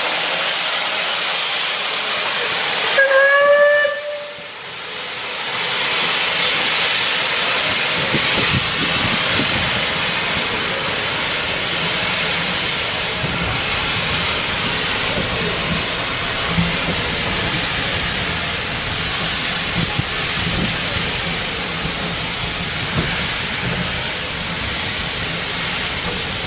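Southern Railway Battle of Britain class steam locomotive 34070 Manston hissing steam, giving one short whistle blast about three seconds in, then pulling away with loud steam hiss as its coaches rumble and click past.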